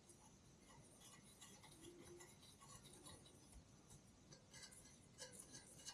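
Near silence, with faint scattered light ticks and rustles.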